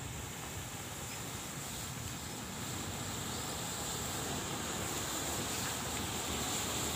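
Hundreds of matchsticks catching in a chain and burning: a steady rushing hiss of flame that grows gradually louder as the fire spreads round the ring.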